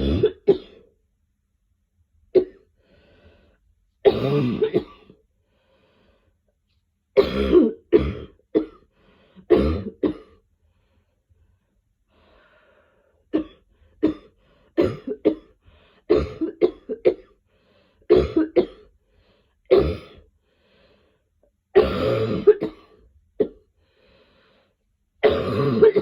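A person coughing again and again in bouts: single coughs and quick runs of two to four, with pauses of one to three seconds between them.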